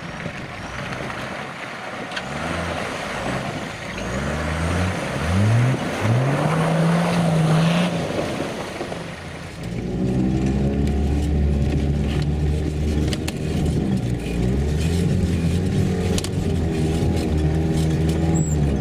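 Toyota Land Cruiser 80-series engine revving hard several times, pitch rising with each rev, as the truck churns through broken shore ice with a rough rushing noise. About halfway, the sound changes to a steady engine drone heard from inside a moving off-road vehicle's cabin, pitch wavering gently with the throttle.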